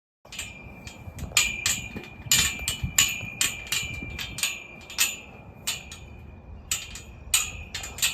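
Repeated sharp metal clanks at an irregular pace, roughly two a second, each leaving a ringing tone at the same pitch.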